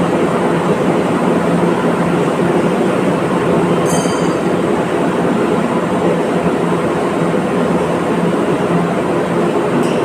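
Steady, loud machine noise with a low, even hum, running without a break.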